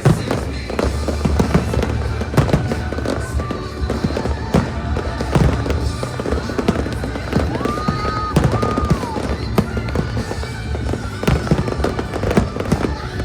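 Aerial fireworks bursting in rapid succession, many sharp bangs and crackles one after another, over a loud music soundtrack.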